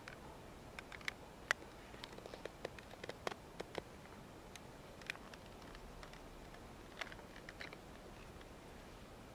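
Yakut knife whittling a stick by hand: a faint scatter of short, crisp cutting clicks, a few at a time with short pauses between.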